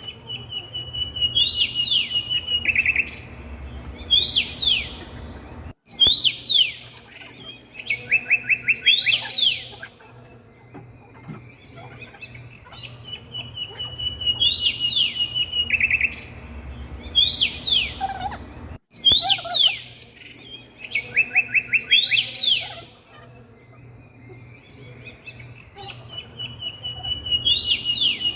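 Birds chirping and singing: quick downward-sweeping calls and a fast trill, the same sequence repeating about every 13 seconds, as a looped recording does.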